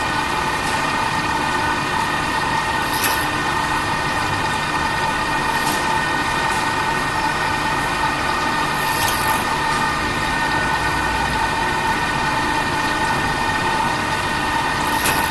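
CNC milling machine cutting a roof-tile mold: a steady whine from the spindle and cutter, with a few brief high-pitched squeaks.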